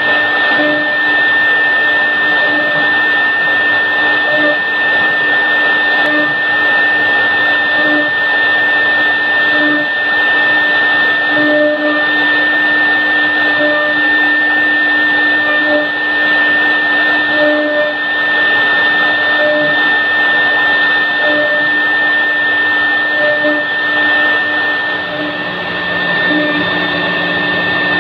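Three-head CNC router's spindle running at speed while its bit engraves a scroll pattern into a wood door panel: a steady high whine over a loud cutting hiss, with a lower hum that swells every second or two.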